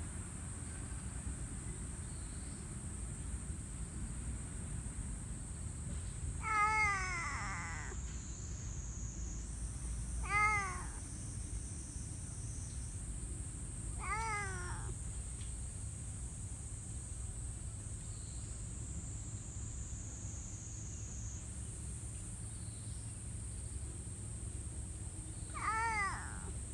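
Black cat meowing four times, with long gaps between: each call rises and then falls in pitch, and the first is the longest. The last comes near the end.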